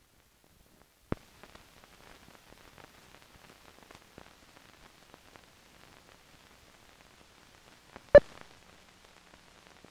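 Optical soundtrack noise from the head of a 16mm film print: faint crackle and scattered clicks over the countdown leader, with a sharp click about a second in. Near the end comes one short, loud pop, the sync pop that marks the countdown leader.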